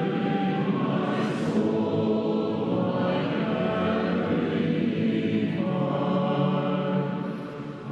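Choir singing a hymn in slow, held chords, with a brief drop in loudness near the end between phrases.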